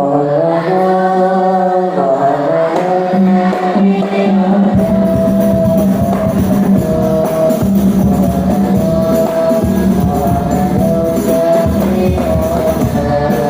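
A child's voice singing a melismatic Islamic devotional song in praise of the Prophet, with long held notes. About five seconds in, a percussion accompaniment with a beat comes in beneath the voice.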